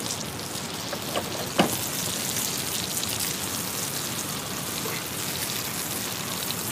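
Red-meat steak sizzling steadily in a frying pan, with two light knocks about a second and a half in.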